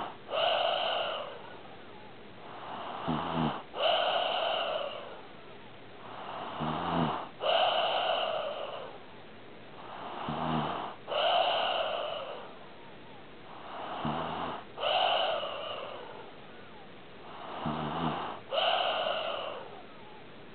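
A sleeping pet snoring in a slow, regular rhythm, about one breath every three to four seconds. Each breath is a rising rasp ending in a short low rattle, then after a brief break a louder rasp that fades away.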